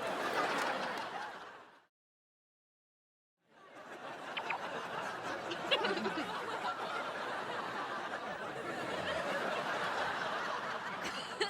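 Disney laugh-track audience laughter: one clip of crowd laughter fades out within the first two seconds, then after about a second and a half of dead silence another stretch of crowd laughter fades in and carries on.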